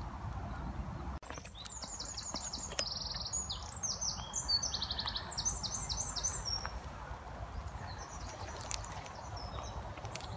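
A songbird singing a long run of rapid, high trilled phrases, from about a second and a half in until past halfway, with a few fainter notes later. Under it runs a low rumbling noise that breaks off briefly about a second in.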